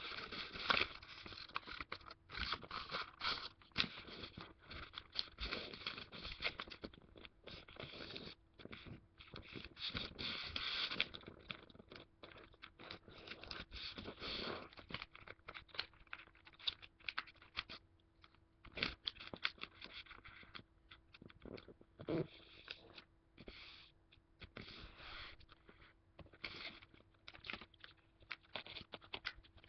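Origami paper being folded and creased by hand: irregular crinkling and rustling, with sharper crunches as folds are pressed flat.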